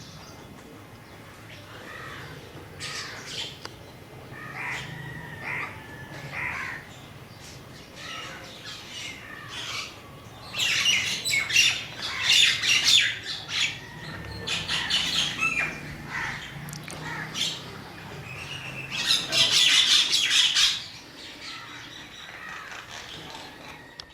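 Several crows cawing, in loud overlapping bouts about ten seconds in and again near the end, with quieter calls in between.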